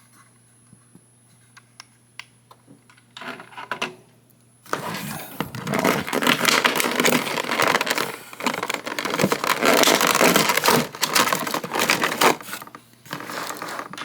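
Plastic toy packaging being handled and pulled apart: a few light clicks, then from about five seconds in a long spell of loud crinkling and scraping that dies down near the end.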